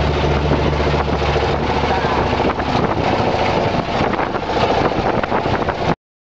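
Motorboat engine running with wind buffeting the microphone; the sound cuts off suddenly near the end.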